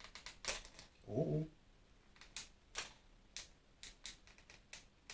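Plastic figure parts being handled and fitted together: a string of short, sharp clicks and rustles, about eight over the few seconds, irregularly spaced.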